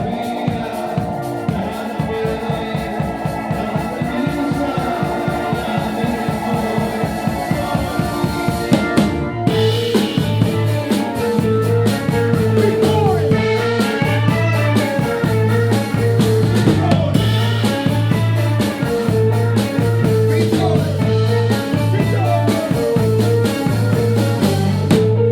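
Live band playing an instrumental groove, with a drum kit keeping a fast steady beat under organ. About nine seconds in the band stops for a moment, then comes back in with a strong pulsing bass line.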